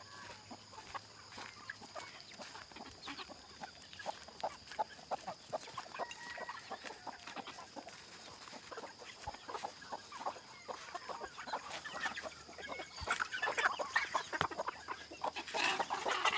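Domestic chickens clucking in a henhouse, among many short scratchy and pecking sounds that grow busier and louder in the last few seconds.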